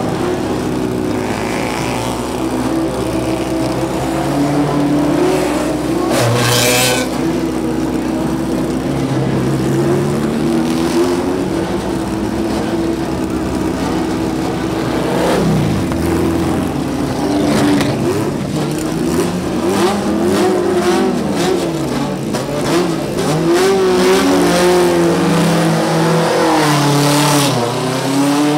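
Engines of several classic racing cars running at idle and being blipped, their revs rising and falling. A loud swell comes about six seconds in and a falling sweep near fifteen seconds as cars move off. From about twenty seconds on the engines are revved up and down repeatedly.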